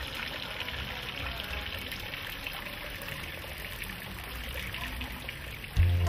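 Water from a stone fountain's spouts trickling steadily into its basin. Music comes in near the end.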